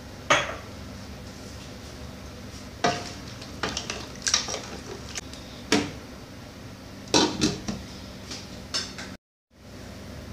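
A metal cooking utensil clanking and scraping against a metal pan as chicken pieces in water are stirred, with about eight sharp clanks spread irregularly. The sound cuts out briefly near the end.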